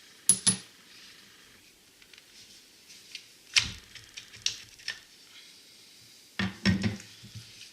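Handling of a Milwaukee cordless angle grinder on a hard surface: separate knocks and clicks, a pair about half a second in, a few in the middle and a cluster near the end.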